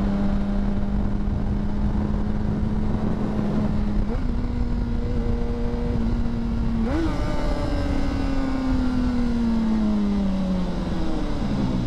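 2009 Honda CBR600RR inline-four engine running under the rider, with wind rush over the helmet mic. The engine note holds steady, jumps up in pitch twice, about four and seven seconds in, then winds steadily down over the last few seconds as the bike slows.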